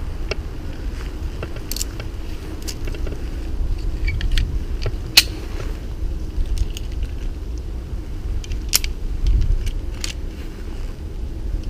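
Scattered light clicks and clinks of metal rope-climbing hardware (ascender, pulley, carabiners) being handled on the climbing rope, over a steady low rumble.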